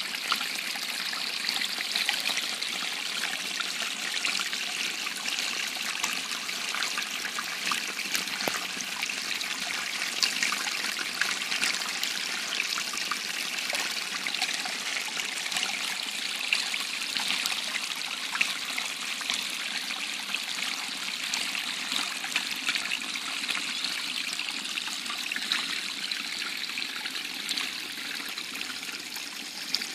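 Small woodland stream trickling and splashing steadily over stones and a little drop, easing slightly near the end.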